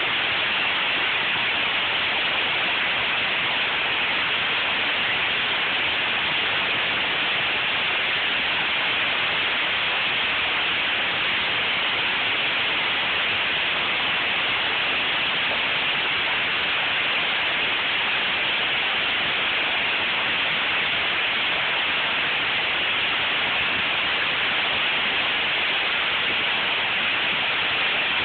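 Torrential rain falling in a steady, loud hiss that holds unchanged with no let-up.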